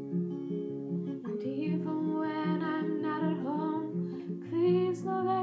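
Acoustic guitar played in a steady repeating chord pattern, with a woman's voice singing a melody over it from about a second in.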